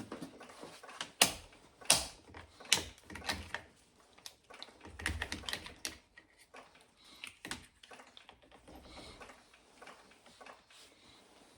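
Irregular clicks and knocks of a handheld battery tester being handled and connected to a car battery, with a few duller thuds.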